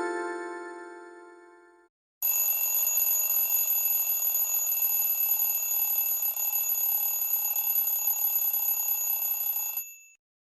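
Huawei P20 Pro alarm tones. The last notes of a chiming tone fade out over the first two seconds. After a brief gap, a continuous bell-like ring, like an old telephone bell, plays steadily for about seven and a half seconds and then stops.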